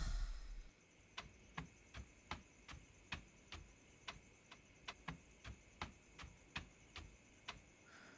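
Footsteps of slippers on a hard floor: a steady walk of light, faint slaps, about two to three a second. A low rumble fades out at the very start.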